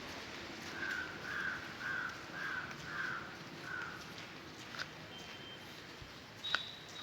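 A bird calling six times in a steady series, about two calls a second, over outdoor background noise; a sharp click and a thin high whistle-like tone come near the end.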